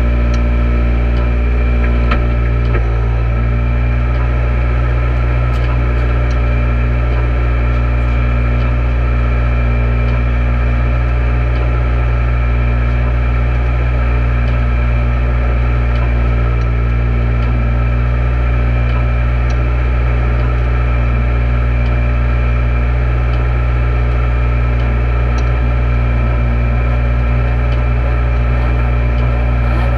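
Peugeot 208 R2 rally car's 1.6-litre four-cylinder engine idling steadily with the car standing still, heard from inside the cabin.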